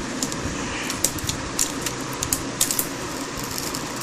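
Small irregular clicks, taps and scrapes of hands working a laptop LCD panel free of its display cable and tape, over a steady room hum.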